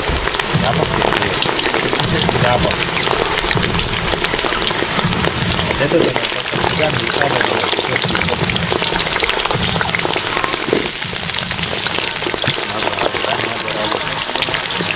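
Potatoes deep-frying in hot oil in a cast-iron kazan: a steady, dense sizzle and crackle of bubbling oil.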